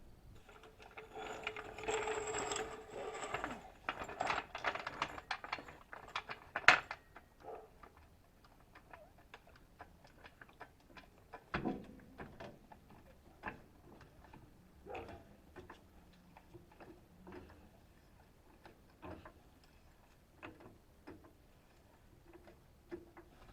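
Mechanical rattling for the first few seconds, ending in one sharp knock, then scattered light clicks and knocks.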